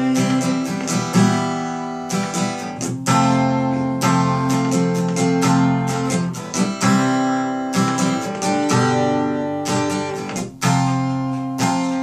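Cutaway acoustic guitar strummed in a steady rhythm as an instrumental passage, with no voice, the chord changing every few seconds.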